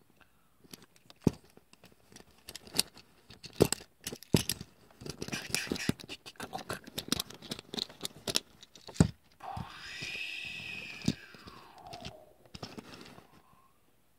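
Small plastic parts of a Transformers Bot Shots Thundercracker toy clicking, snapping and scraping as it is folded by hand from robot into jet form. After about nine seconds a sustained sound rises and then falls in pitch over about three seconds.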